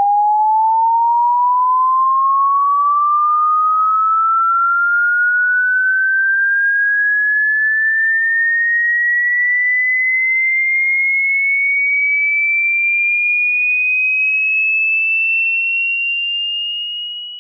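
A single pure electronic sine tone gliding slowly and steadily upward in pitch, from a high hum to a shrill whistle, then fading out at the very end.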